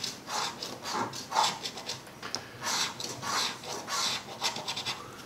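A copper coin scratching the coating off a scratch-off lottery ticket on a tabletop, in repeated short scraping strokes a little under two a second.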